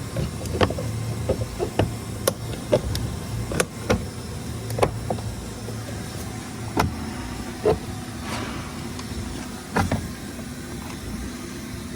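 Plastic door-card trim clips popping and snapping as a trim tool prises the panel away from the door: a dozen or so irregular sharp clicks over a steady low hum.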